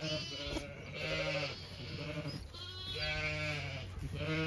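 Zwartbles sheep bleating, several long calls one after another, some overlapping, roughly one a second.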